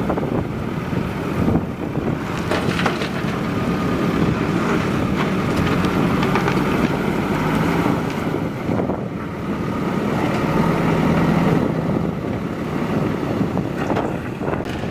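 JCB 3DX backhoe loader's diesel engine running steadily at work, with wind buffeting the microphone and a few short knocks.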